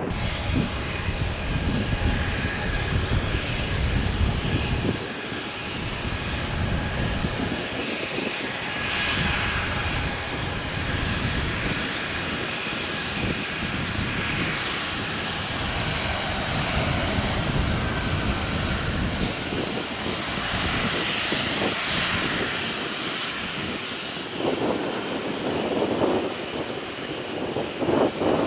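Airplane's engines passing: a continuous rumble with a steady high whine that drops slightly in pitch about two thirds of the way through, the low rumble strongest in the first five seconds.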